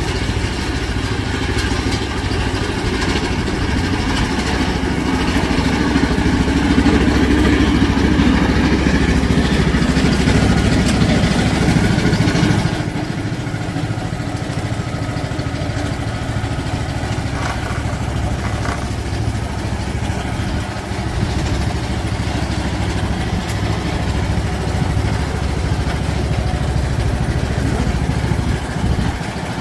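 Riding lawn mower engine running steadily. About halfway through, its sound drops suddenly to a lower, steady level.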